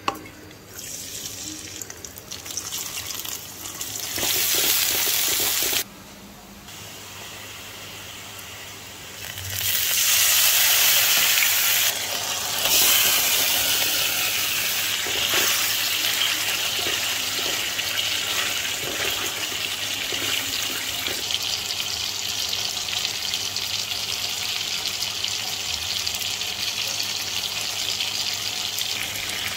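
Hilsa fish steaks sizzling in hot oil in a frying pan: a steady hiss that jumps louder about ten seconds in and goes on as the fish cooks in its bubbling sauce.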